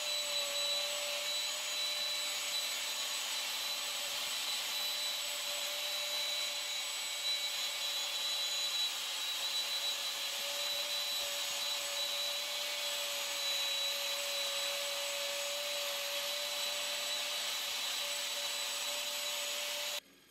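A high-speed electric motor running steadily, with a strong rushing-air hiss and a slightly wavering whine. It cuts off suddenly near the end.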